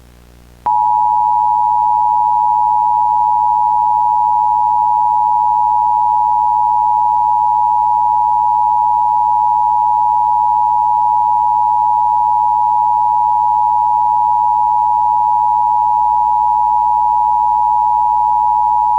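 Emergency Broadcast System two-tone attention signal: two steady high tones sounding together, loud and unbroken, starting abruptly about a second in. It is the alert that heralds an emergency broadcast message. Faint static hum comes before it.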